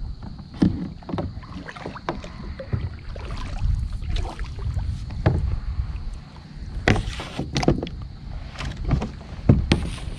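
Kayaks on the water: paddle splashes and sharp knocks of paddle and gear against the plastic hulls, the loudest a few seconds from the end. A steady rumble of wind on the microphone lies under it all.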